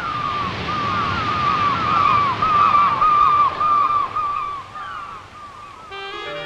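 Seagulls crying, many short calls overlapping one after another, over a steady rush of surf. Music with sustained tones comes in just before the end.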